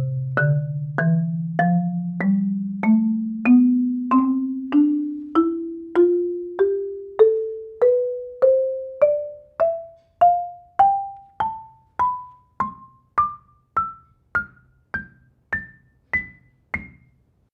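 Marimba played one note at a time in a slow ascending scale, about two notes a second, climbing some four octaves from the low bass register to the top of the instrument. Each struck bar rings and fades, the low notes ringing longer than the high ones; raw, unprocessed audio from microphones under the instrument.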